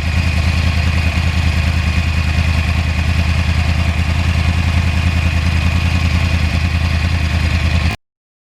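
Yamaha R1 crossplane inline-four motorcycle engine running steadily with a low, even pulsing note and no revving. It cuts off suddenly near the end.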